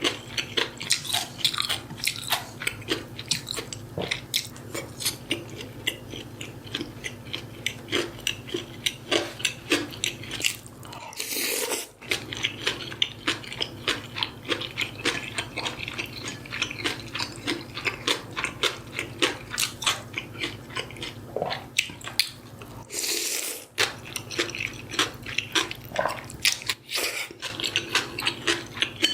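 Close-miked chewing and biting of food: a steady run of wet mouth clicks and soft crunches, a few a second, with two short rushing noises about 11 and 23 seconds in.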